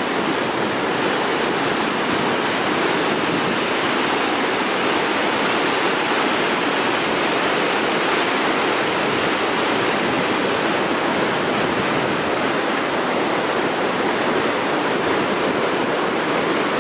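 Water gushing steadily and loudly from a reservoir outlet during a flood release.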